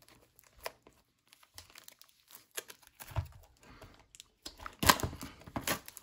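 Clear plastic shrink-wrap being torn and peeled off a cardboard trading-card box, crinkling in irregular crackles. The crinkling gets louder and denser in the last second and a half as the film comes away.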